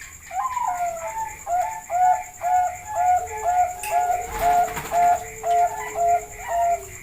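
Zebra dove (Bangkok perkutut) cooing: a quick series of short, clipped coos, about two a second, after an opening glide. A lower, drawn-out note runs beneath the second half.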